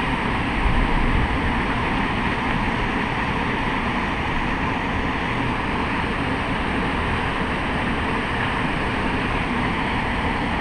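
Steady rushing noise with a low rumble that rises and falls, a little louder about a second in.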